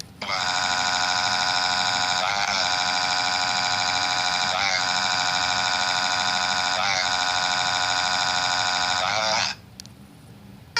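A loud, steady electronic tone with many overtones, like an alarm or buzzer sound effect. It repeats in a loop about every two and a half seconds for about nine seconds, then cuts off suddenly.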